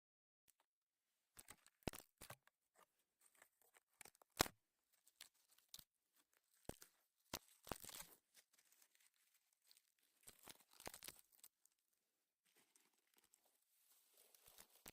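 Sharp snaps and crackles with bouts of rustling and tearing, typical of dry spruce twigs being broken and bark handled for kindling. The loudest snaps come about two and four and a half seconds in.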